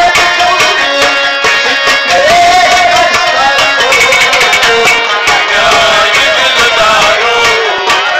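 Man singing a Kashmiri folk song in a wavering, ornamented melody, with steady rhythmic percussion and instrumental accompaniment.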